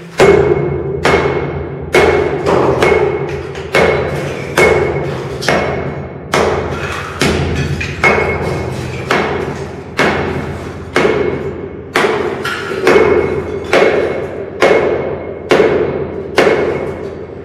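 Hammer blows breaking out a block partition wall, struck at a steady pace of about one blow a second, each blow ringing briefly in the bare room as chunks break away.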